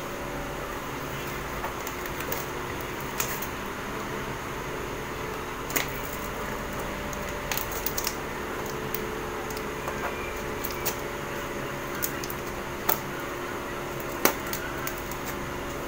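A dozen or so scattered light clicks and taps from handling a small cardboard box, over a steady background hum.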